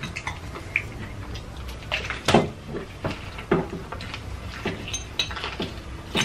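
Close-up eating sounds: crunchy bites into sauce-dipped fried chicken, with wet chewing and mouth smacking, as a string of irregular sharp crackles and clicks.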